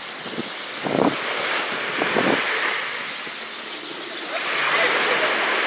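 Sea waves breaking and washing up the beach, in two louder surges, about two seconds in and again from about four and a half seconds.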